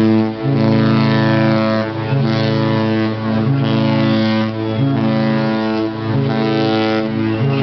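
Cruise ship horns sounding long, deep blasts one after another, the pitch shifting from blast to blast with short breaks between, like notes of a tune traded in a horn battle.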